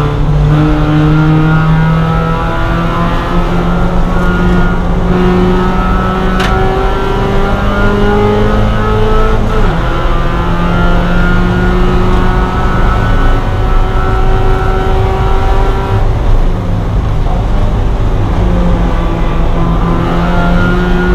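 Spec Miata race car's four-cylinder engine pulling hard at racing revs, heard loud from inside the cabin. Its pitch climbs slowly, drops sharply about ten seconds in, then climbs again, with another change around sixteen seconds.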